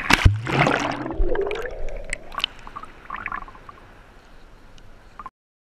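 A breaking sea wave washes over the camera. A loud splash is followed by muffled underwater gurgling and rushing, which fades into light sloshing and scattered drips. The sound cuts off suddenly about five seconds in.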